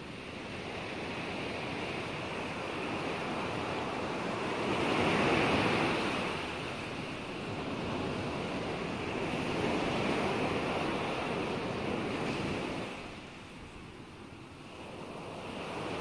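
Rushing water noise, an even wash with no distinct events, swelling to its loudest about five seconds in and dipping briefly near the end.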